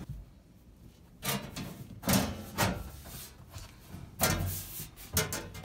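A bent sheet-metal floor panel being set down over the floor opening and shifted for a test fit: a handful of short clunks and scrapes of metal against the truck's floor, roughly a second apart.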